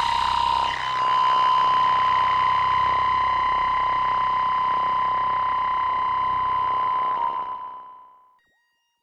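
Animoog Z synthesizer app playing a preset: one sustained high note with a grainy hiss around it, held steady for about seven seconds, then fading out to silence near the end.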